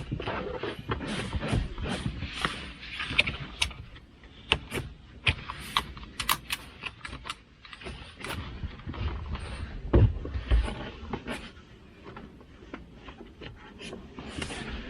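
Clicks, knocks and rustling of a child car seat being handled and fitted onto a vehicle seat, its straps, anchors and buckles worked by hand, with a heavier thump about ten seconds in.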